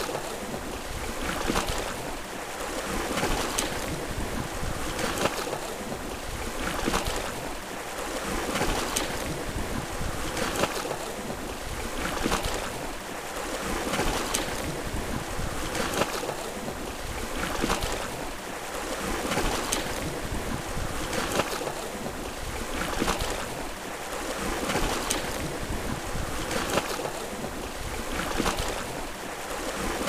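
Small sea waves splashing against shoreline rocks, a rushing wash that swells and falls back about every two seconds.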